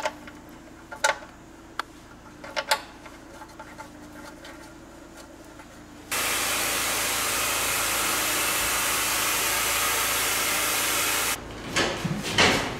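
Sharp metal clicks and knocks of hand work at a car's oil sump drain plug. About six seconds in, a loud, steady hiss starts abruptly and cuts off about five seconds later, followed by a few knocks near the end.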